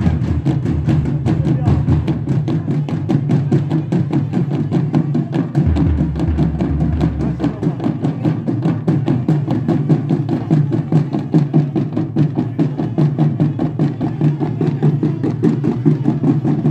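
Dubași drums of a Romanian caroling group: several frame drums beaten together in a fast, steady rhythm.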